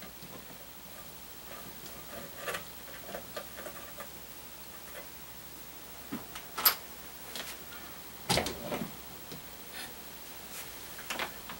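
Scattered light clicks and taps of small parts and tools being handled around a radio chassis on a workbench, with a few sharper clicks in the second half.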